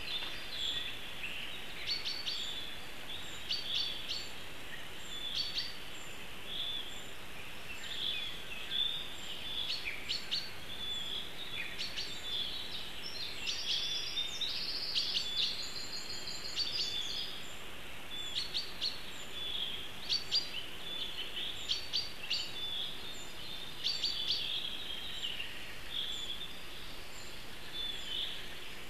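Small forest songbirds singing and calling, with many short, high chirping phrases repeating every second or two over a steady outdoor hiss.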